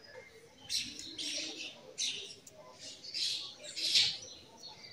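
Modelling clay being handled and cut with scissors: a series of about six short scraping and rubbing sounds, the loudest near the end.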